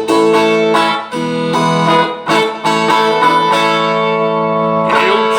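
Rozini viola caipira, the Brazilian ten-string folk guitar, tuned in cebolão E major and played through a small amplifier: a plucked and strummed instrumental passage of a moda de viola.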